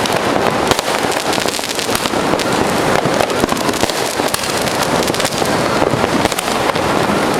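Many fireworks and firecrackers going off at once in a dense, unbroken barrage of overlapping bangs and cracks, with no pause.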